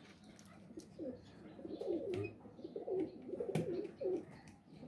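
A pigeon cooing over and over in low, wavering phrases, with a few sharp clicks in between.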